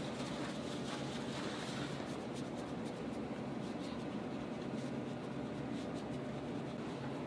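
Hands rubbing and working over the skin of a bare foot: soft, scratchy friction sounds with faint light ticks, over a steady low room hum.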